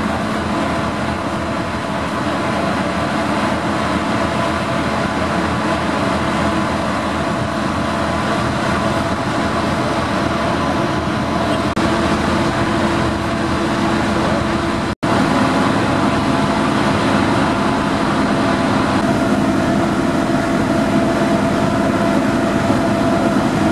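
Steady drone of a car ferry's engines and machinery under way, several humming tones over a constant rushing noise, with a brief break about fifteen seconds in.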